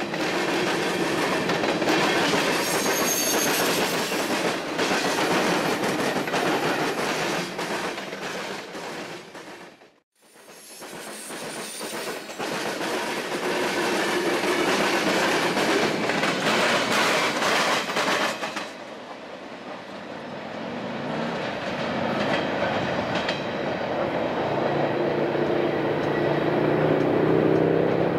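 Freight train cars rolling past, steel wheels clicking over rail joints with a steady rumble and rattle. The sound cuts out briefly about ten seconds in, then picks up again. In the last third the rolling eases off and a low humming tone rises in pitch near the end.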